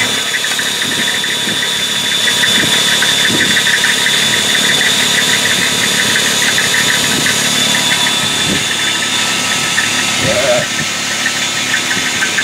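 Electric drill running under load, boring a hole into a metal block held in a vise: a steady high whine with a fast rattling chatter from the bit cutting metal.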